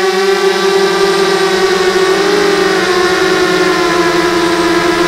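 Y6 mini hexacopter's six electric motors and propellers whining steadily, heard from the onboard camera. The pitch wavers about halfway through as motor speed changes, then settles a little lower.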